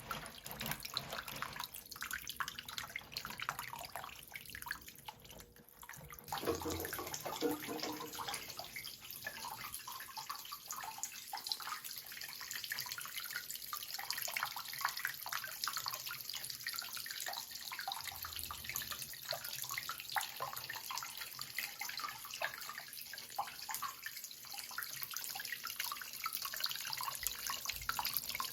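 Water trickling and splashing steadily from a small homemade indoor water fountain. The flow briefly quiets about five seconds in, then picks up again louder.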